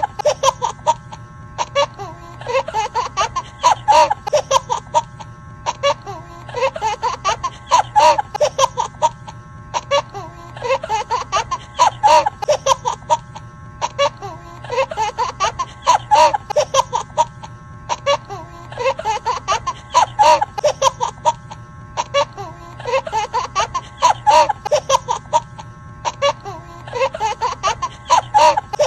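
Looped laughter sound effect, the same burst of laughs repeating about every four seconds, over a steady music bed.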